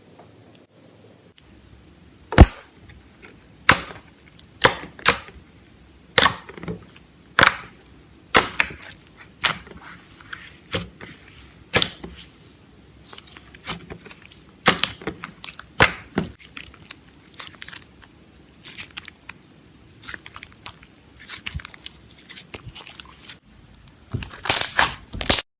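Slime being squeezed and pressed by hand, giving sharp clicking pops at irregular intervals of about a second, with a quick run of pops near the end.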